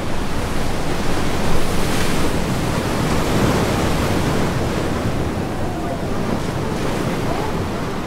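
Storm surf breaking on a granite shore, a steady heavy rush of waves that swells about a second and a half in and slowly eases, with wind buffeting the microphone.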